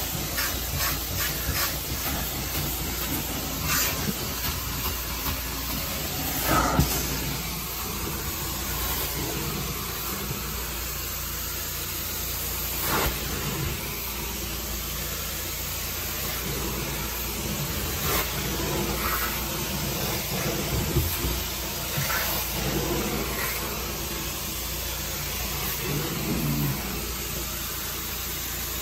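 Carpet extraction cleaning wand drawn in strokes across carpet: a steady hiss of water spray and vacuum suction over a low machine hum, with a few brief louder knocks or scrapes scattered through.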